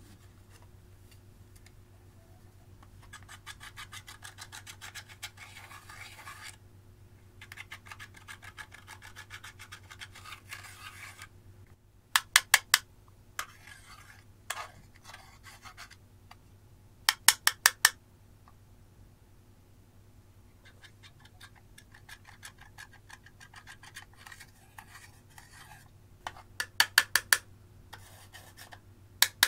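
Pressed eyeshadow being scraped out of the pans of a plastic makeup palette with a small tool: a dry, gritty scratching in long stretches. Three quick runs of sharp clicking taps break in, each with about five clicks in under a second.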